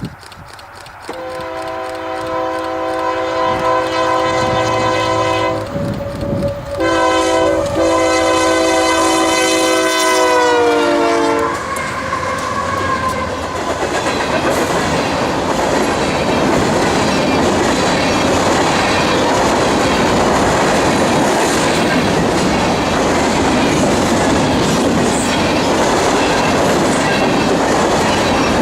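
Freight locomotive air horn sounding two long blasts, its chord sliding down in pitch near the end of the second as the locomotive passes. Then the grain hopper train rolling past steadily on the rails.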